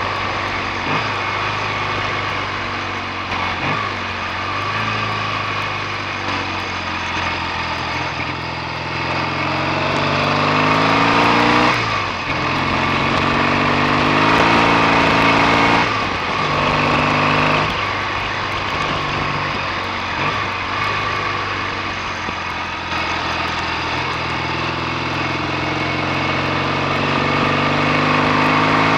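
BSA A65 650 parallel-twin motorcycle engine under way. Its pitch climbs as it pulls, then drops twice at gear changes in the middle stretch before it runs on more evenly.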